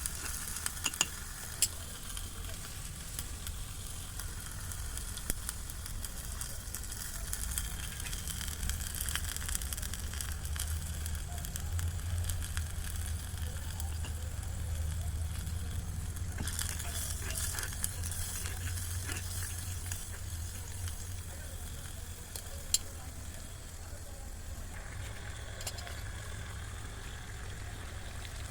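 Food frying and sizzling in a small miniature cooking pan, a steady crackling hiss with a few sharp clicks of stirring.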